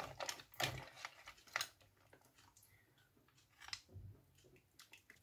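Faint clicks and taps of cooked mussel shells knocking against each other and a slotted spoon in a stainless steel pot. There are a few clicks in the first two seconds, then a near-silent stretch, a soft shuffle just before four seconds, and a few small clicks near the end.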